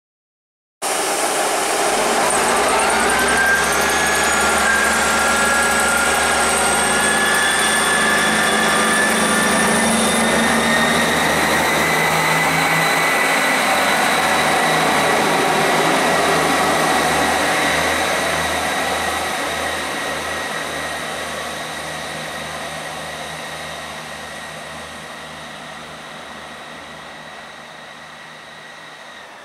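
ScotRail Class 158 diesel multiple unit running under power, its underfloor diesel engines and transmission whines rising in pitch as it picks up speed. The sound starts abruptly about a second in, holds loud, then fades steadily over the last dozen seconds as the train draws away.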